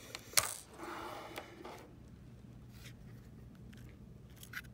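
Small cable being pulled out of its connector inside an Apple TV: one sharp click about half a second in, then faint handling and rustling of small parts, with a soft tick or two near the end.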